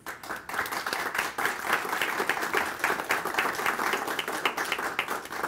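Audience applauding, many hands clapping together in a steady, dense patter.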